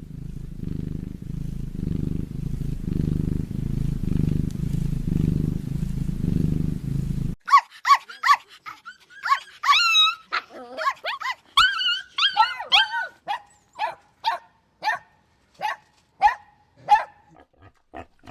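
A cat purring in a low, pulsing rumble. About seven seconds in it cuts to a dog barking and yelping in a quick series of short, high calls.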